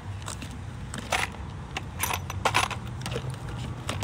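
Loose drill bits rattling and clicking inside a clear plastic food container as it is handled and its lid fitted, in a series of short clatters.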